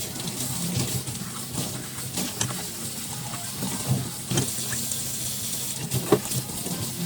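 Dishes being washed at a kitchen sink: water running from the tap, with scattered clinks and knocks of dishes, the sharpest about six seconds in.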